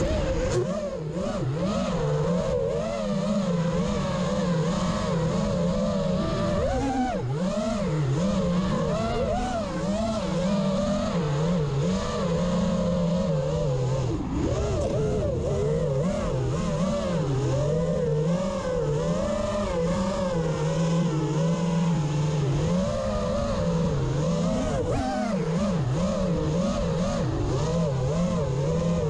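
An engine running steadily, its pitch rising and falling a little every second or two.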